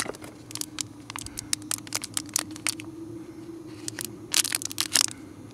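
Clear plastic packaging crinkling and crackling in the hand as a sleeve of coloured pens is handled, with a dense flurry of crackles about four seconds in. A faint steady hum runs underneath.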